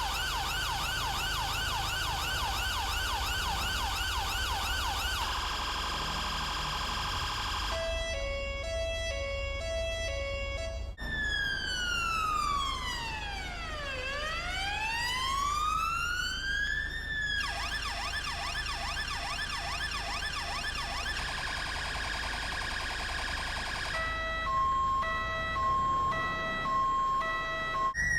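UK police electronic siren cycling through its tones. It opens with a fast yelp of about three rising sweeps a second, then a brief steady tone and a two-tone hi-lo alternation. A slow wail follows that sweeps down and back up once, then another fast yelp, and near the end an alternating-tone pattern. A steady low rumble runs underneath.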